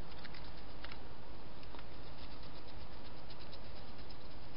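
Steady microphone hiss with faint, quick clicks and rustles from a wild European hedgehog foraging beside a plastic feeding box, several clicks in the first second and a few scattered after.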